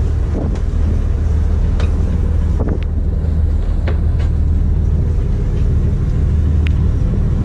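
Fishing boat's engine running with a steady low hum, with a few light knocks on deck scattered through it.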